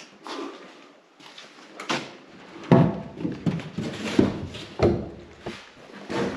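Irregular knocks and thuds in a small echoing room, coming thick and loud a little under halfway through.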